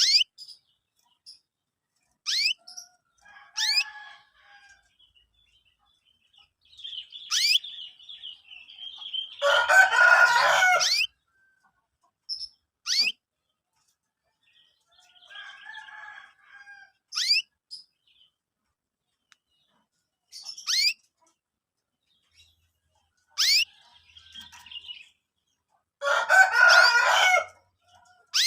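Young canaries chirping: short, sharp calls that sweep downward in pitch, every second or two, with two louder, denser bursts of song lasting one to two seconds, one about a third of the way in and one near the end.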